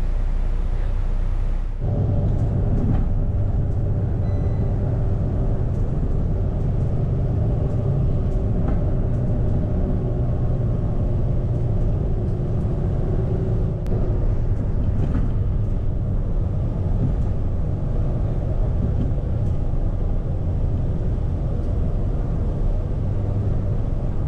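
Steady low rumble of a moving vehicle with a faint droning tone over it; it turns fuller and louder about two seconds in.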